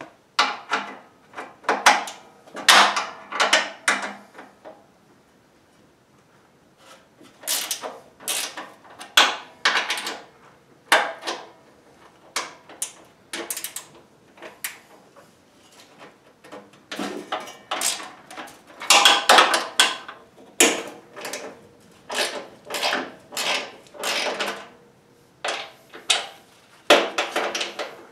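Ratchet wrench and socket backing out the 12 mm bolts on a Honda HSS1332 snowblower's auger support bracket: bursts of quick clicking and metal knocks lasting a second or two each, with two short pauses.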